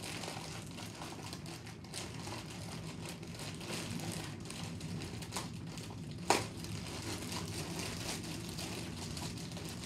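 Plastic courier mailer bag crinkling and rustling as it is twisted and pulled open by hand, with one sharp, louder snap about six seconds in.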